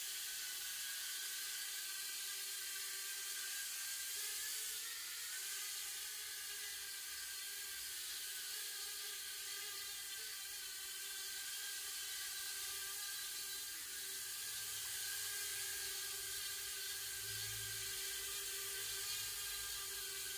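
Holy Stone HS210 toy micro quadcopter flying, its four small motors and propellers giving a steady high-pitched whir that wavers slightly in pitch as the drone holds its hover.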